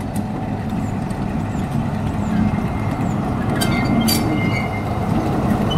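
Sulzer-engined BR 'Peak' Type 4 diesel locomotive running slowly on the approach, its engine a steady low drone that grows louder as it comes nearer. A short run of sharp high clicks with a thin squeal comes about three and a half seconds in.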